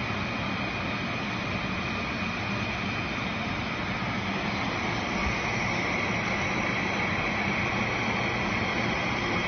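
Automatic jar filling and capping line running: a steady mechanical hum with a constant high whine.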